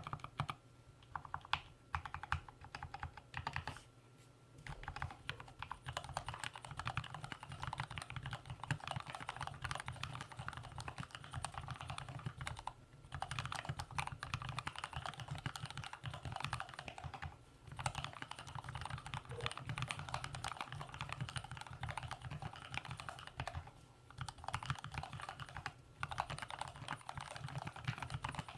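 Typing on a mechanical keyboard with lubed Gateron Yellow linear switches in an aluminium plate, under Cherry-profile keycaps: a fast, continuous run of keystrokes with a few short pauses.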